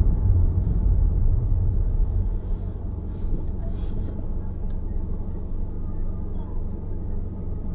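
Low, steady rumble of a car driving on a city road, heard as road and engine noise. It is louder for the first two seconds, then eases off and holds steady.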